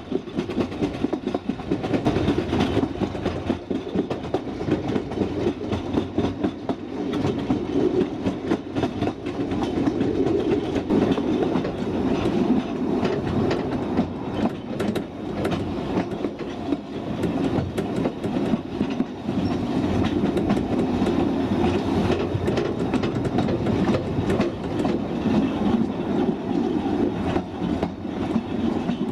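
Narrow-gauge railway carriage running along 2 ft track, a steady rumble of wheels on rail with quick irregular clicks and clacks from the wheels over rail joints, heard from an open veranda on the moving carriage. The battery electric loco adds no engine sound.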